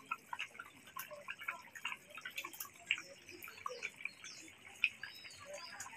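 Fish and taro curry simmering in a karai, bubbling with many small irregular pops and plops as pieces of fried rohu fish are slipped into it.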